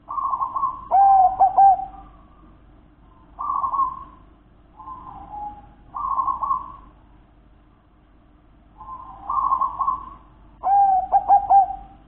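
Zebra dove (perkutut) cooing: about six coo phrases a few seconds apart. The loudest two, about a second in and near the end, close with a quick run of repeated notes.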